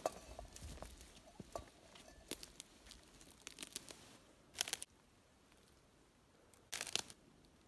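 Faint footsteps crunching on stony, needle-strewn ground, with two louder rustling scrapes in the second half.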